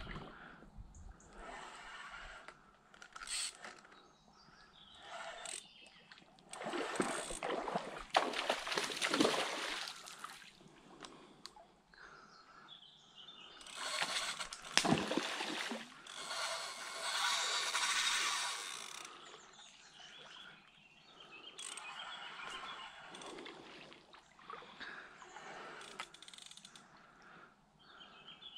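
Hooked Atlantic salmon splashing at the river surface while being played on a fishing rod, in several bursts of noise, the loudest about a third of the way in and again around the middle.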